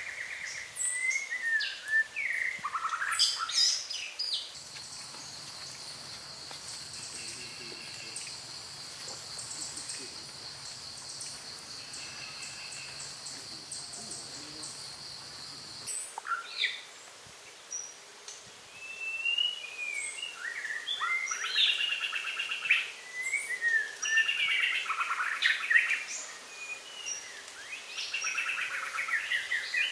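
Birds chirping and calling in short rising and falling phrases. For a stretch in the middle the calls die down under a steady high hiss, then the chirping returns, busier, after an abrupt change.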